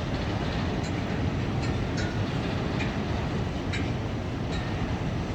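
Train running: a steady rumble with short high clicks scattered through it.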